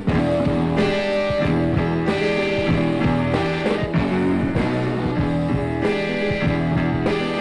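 Instrumental rock music: guitar and band over a steady beat, with no singing.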